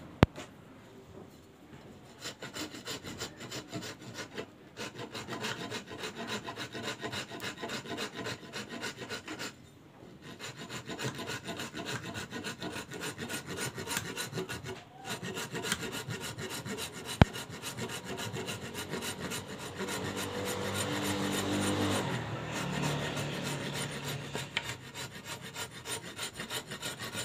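A wooden carving being abraded by hand: quick, rhythmic back-and-forth rubbing strokes of a rasp-like tool or abrasive on the wood, stopping briefly a few times, with a couple of sharp clicks.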